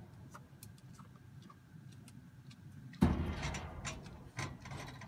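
Calf feeding at a galvanised-metal creep feeder: faint clicks of barley being nosed and eaten, then about three seconds in a loud knock and rattle against the metal feeder that dies away over about a second, followed by a few lighter knocks.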